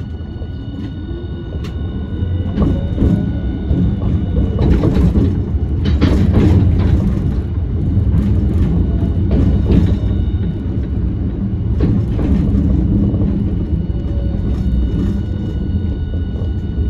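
Hiroshima Electric Railway 1000-series Green mover LEX low-floor tram running, heard from inside the car: a steady low rumble of wheels on rail with irregular clacks over the track and faint steady high tones, getting louder about two seconds in.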